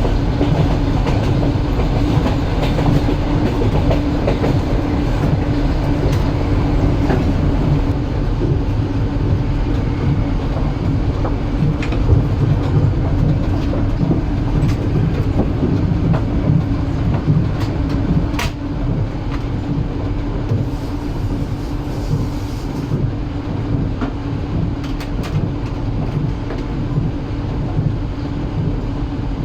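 Passenger train running along the track, heard from inside the carriage: a steady low rumble of the wheels with a constant hum, and a sharp click over the rails now and then. It gets slightly quieter a little past the middle.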